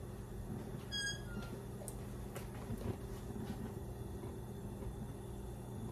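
A steady low electrical hum of a kitchen appliance, with a short high squeak about a second in and a few faint clicks and taps as a bottle of cooking oil is uncapped by hand.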